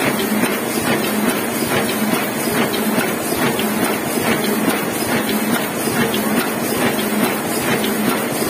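Heidelberg KORS single-colour sheetfed offset press running at speed, feeding and printing sheets with a steady, rhythmic mechanical clatter.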